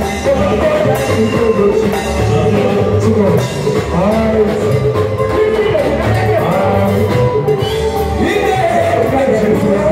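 Live band music through PA speakers with a steady beat, and a man singing into a microphone over it.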